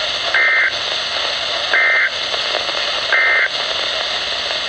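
EAS end-of-message data bursts heard through a Midland WR-100 NOAA weather radio: three short, identical two-pitch warbles about a second and a half apart, over steady radio hiss. They are the digital code that closes the flood warning.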